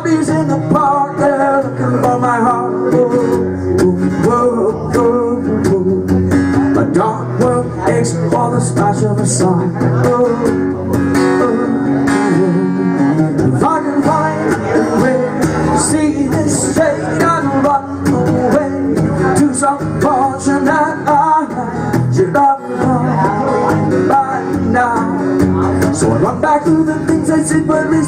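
Guitar playing a song as live music, with singing at times.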